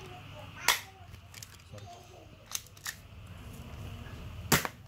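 Toy Glock 19 replica pistol firing plastic pellets: two sharp snapping shots about four seconds apart, with fainter clicks in between.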